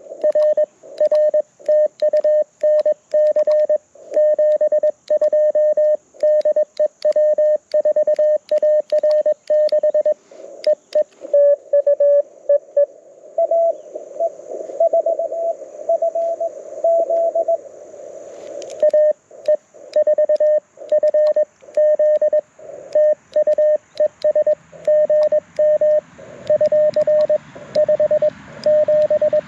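Morse code (CW) from a Mountain Topper MTR4B V2 QRP transceiver, played through a small portable speaker: a steady tone keyed in rapid dots and dashes as the operator sends. About halfway through, for a few seconds, another station's Morse comes back slightly higher in pitch over receiver hiss, then the sending tone resumes.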